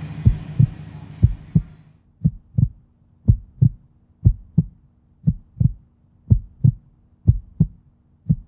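Heartbeat sound effect: paired low 'lub-dub' thumps, about one pair a second. Outdoor background noise under it cuts out about two seconds in, leaving the heartbeat alone over a faint low hum.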